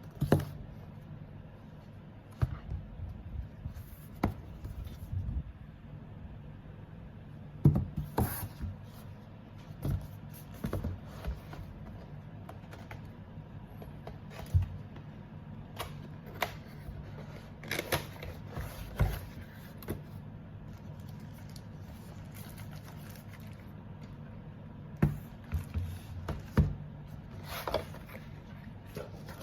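Scattered light clicks and knocks of a keyboard and its plastic keycaps being handled, in small irregular clusters over a steady low hum.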